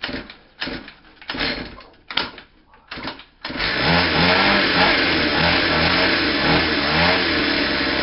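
Small pull-start engine of a cheap mini dirt bike being pull-started: several short pulls turn it over without catching, then about three and a half seconds in it fires and runs steadily and loudly, the revs wavering a little.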